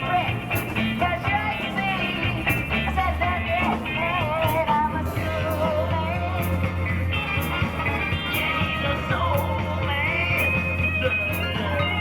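A rock-and-roll song playing, with a singing voice, a steady bass line and an even beat of cymbal ticks.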